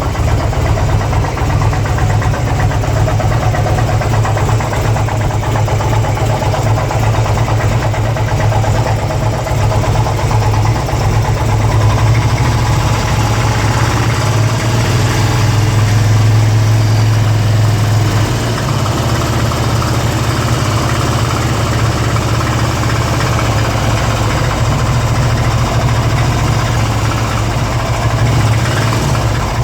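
2002 Harley-Davidson Ultra's Twin Cam V-twin engine idling steadily, with an unidentified strange noise from the engine that the owner cannot trace.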